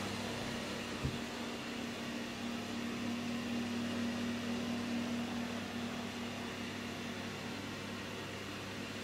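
Bathroom extractor fan running with a steady hum, with a single light tap about a second in.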